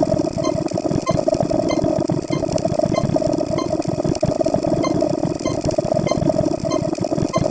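Many copies of a short digital sound effect layered on top of one another, merging into a loud, steady droning texture with faint regular pips about twice a second.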